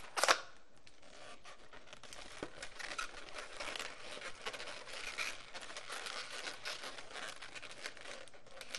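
Latex 260 balloon popping sharply just after the start as the extra length is broken off, then the rubbing, crinkling and squeaking of latex balloons being handled and twisted.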